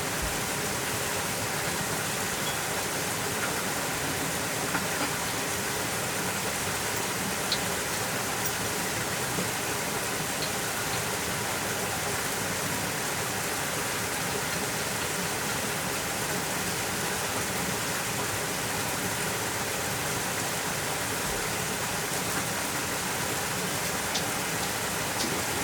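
Steady, even rushing of water, with a few faint small clicks.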